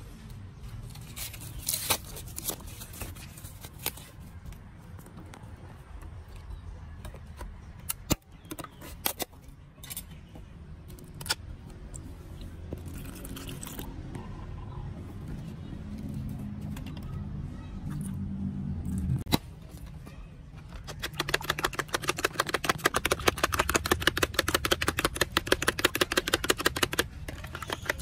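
Scattered clicks and knocks over a low rumble, then about three-quarters of the way in a fast, steady clatter begins: a metal spoon beating an egg and canned-milk mixture in a plastic tub.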